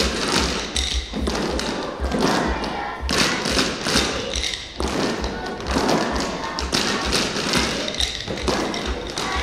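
Children's percussion playing a steady rhythm: low drum thumps about three times a second with sharper taps between them.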